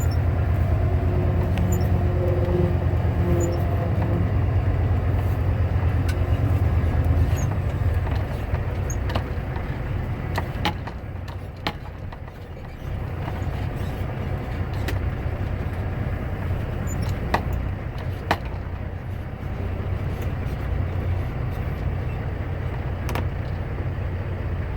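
Semi truck's diesel engine running, heard from the cab as the truck pulls into a service bay, with scattered light clicks. The low engine hum is strongest for the first several seconds, then eases off and dips quieter about halfway through before settling to a steady idle.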